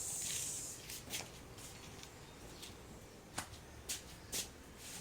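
Rack parts being handled as a bolt and brace are fitted: a brief rustle at the start, then a few separate sharp clicks and light knocks.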